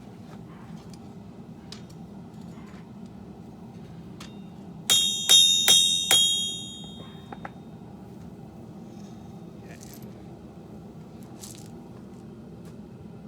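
Four quick hammer blows on steel at the anvil, each ringing out bright and metallic, about five seconds in, over a steady low rumble.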